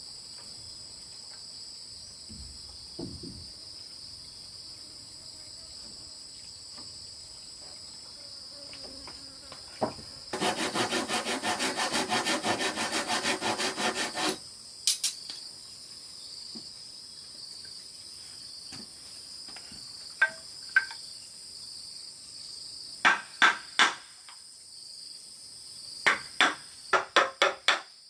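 Handsaw cutting a wooden board in rapid strokes for about four seconds midway. Later comes a chisel struck with a hammer to cut a wood joint: single knocks, then a quick run of three, then a faster series near the end. Insects call steadily at a high pitch throughout.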